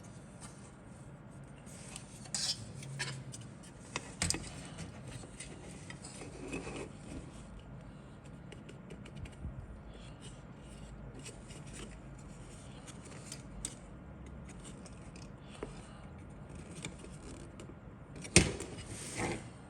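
Small hard plastic pieces being handled, giving scattered light clicks, taps and rustles, with a sharper click and short rattle near the end.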